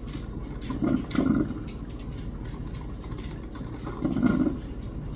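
Coffee maker running with a steady low hum, with two louder bursts of sound, one about a second in and another near the end.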